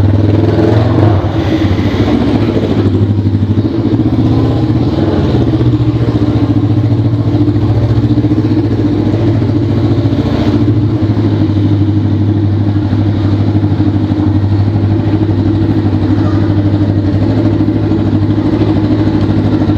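Carbureted Honda CB 500's parallel-twin engine running loud and steady through a bare exhaust pipe with no muffler.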